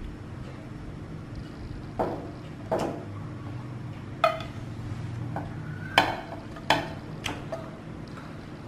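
Frying pan and utensils clinking and knocking against a ceramic plate as sauced fish steaks are slid out onto it: about six sharp clinks starting about two seconds in, one of them ringing briefly about four seconds in.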